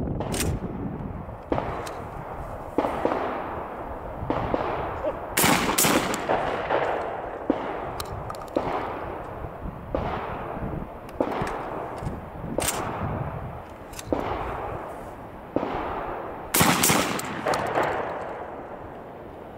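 Shotgun shots, each with a rumbling echo. Two loud quick shots about half a second apart come from a Beretta A400 Xcel semi-automatic shotgun, once about a third of the way in and again near the end. Fainter reports go off every second or so in between.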